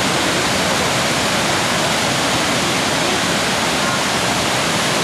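Waterfall: a loud, steady rush of water falling onto rocks and churning into spray at the foot of the falls.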